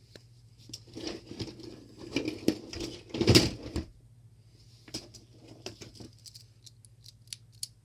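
Toys being handled and moved about: irregular rustling with scattered clicks and knocks, loudest a little after three seconds in.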